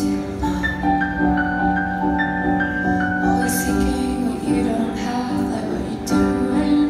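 A rock band playing live: a slow passage of long held chords, with a melody line shifting over them.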